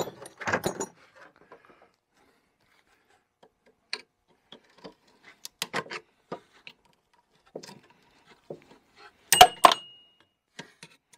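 Hand tools such as a screwdriver clicking, tapping and scraping on the snowmobile's jack shaft bearing and steel chassis. Near the end come two sharp metal strikes close together, the second leaving a brief ringing note.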